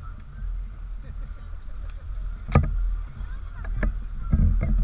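Boat under way: a steady low rumble of the motor and water on the hull, with several sharp knocks, the loudest about halfway through and a few more near the end.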